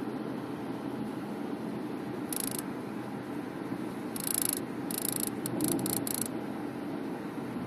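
Short high-pitched buzzing bursts that sound like a cicada, coming from the sunroof of a new Subaru Forester over steady road noise inside the moving car: one burst about two seconds in, then a quick run of several near the middle. The owner suspects the pop-up wind deflector, retracted, buzzing against the roof as the body vibrates.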